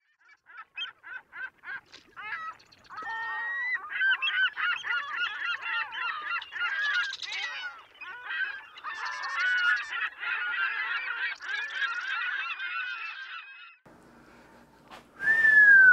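A flock of birds calling over each other. A few scattered calls at first become a dense, overlapping chorus about three seconds in, which stops about two seconds before the end.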